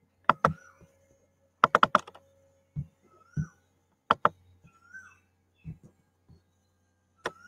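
Sharp clicks and taps of a computer keyboard and mouse, scattered and uneven, with a quick run of four clicks about two seconds in.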